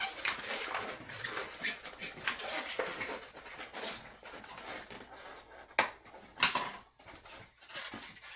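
Inflated white 260 latex twisting balloons rubbing and squeaking against each other and against hands as a finished balloon skeleton is handled, with two louder squeaks a little past halfway.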